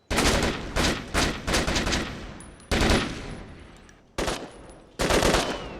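AK-pattern assault rifles firing short bursts and single shots at irregular intervals, each report dying away in a long echo.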